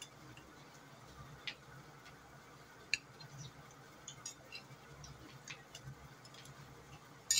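Faint, scattered light clicks and taps of a metal spoon against a ceramic plate while rice is scooped, over a low steady room hum. The sharpest tap comes about three seconds in.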